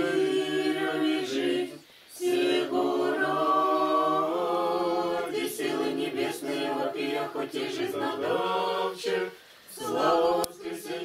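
A small choir of voices singing an Orthodox liturgical hymn a cappella in Church Slavonic, in long held phrases with short breaths between them, twice.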